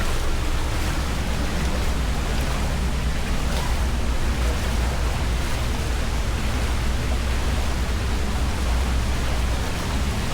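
Waterfall running: a steady rush of falling water with a deep rumble underneath.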